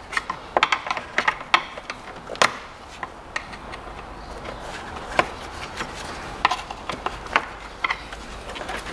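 Irregular clicks and light knocks of plastic hose connectors and intake-duct parts being unclipped and handled by hand in an engine bay.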